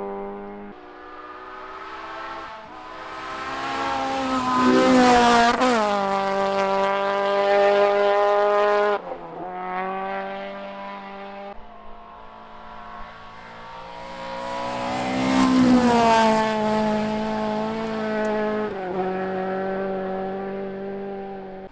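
Rally car engine revving hard through the stage, its pitch climbing and then dropping suddenly at gear changes and lifts. It is loudest about five seconds in and again around sixteen seconds in.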